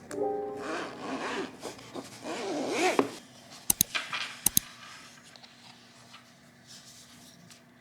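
Background music with a few piano notes at the start, then a rasping, zipper-like rubbing for about two and a half seconds, followed by two pairs of sharp clicks; the rest is faint.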